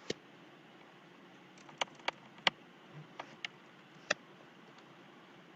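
About seven sharp, irregular clicks from someone working at a computer, over a faint steady hiss.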